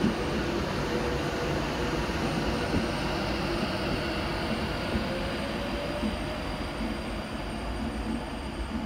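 Class 390 Pendolino electric train moving away along the track, a steady rumble of wheels on rail that eases slightly toward the end. A faint whine rises in pitch about five seconds in.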